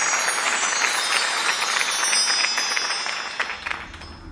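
Crowd applause that fades away after about three seconds, with a shimmering, twinkling chime effect ringing high above it.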